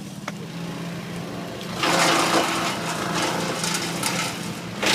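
Small petrol engine power tool running steadily, then loading up loudly about two seconds in as it cuts into wood, the cutting noise surging and easing.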